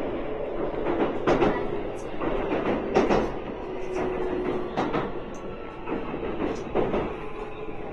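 Electric commuter train running on the rails: a steady rumble with the wheels knocking over rail joints at irregular intervals, and a faint whine.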